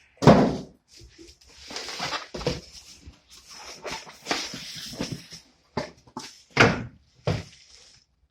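Packaging and saw parts being handled while unboxing: rustling of cardboard and plastic with several sharp thumps, the loudest just after the start and two more near the end.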